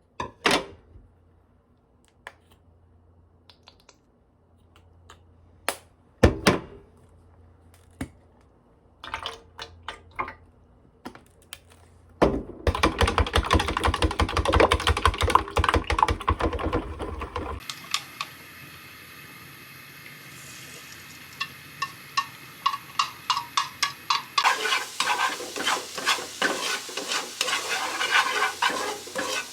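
Cooking sounds: scattered clinks and knocks of dishes and utensils, then about twelve seconds in a louder stretch of rapid clatter. From about eighteen seconds food sizzles in a frying pan while a utensil stirs and taps against it, getting louder near the end.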